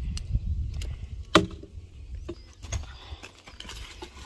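Axe chopping dry firewood branches: a sharp, ringing strike about a second and a half in and another near the end, with lighter knocks of wood between.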